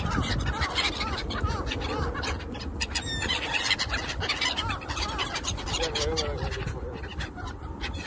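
A flock of black-headed gulls calling around feeding people, many short harsh calls overlapping without pause.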